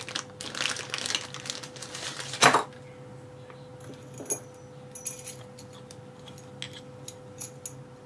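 Small metal lock parts clicking and clinking as a Ruko oval cylinder is taken apart, its plug being pushed out with a follower: a quick run of clicks, a sharp louder click about two and a half seconds in, then scattered light clinks.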